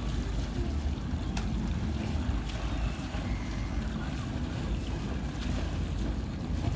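Wind buffeting the microphone as a steady low rumble, with a few faint clicks.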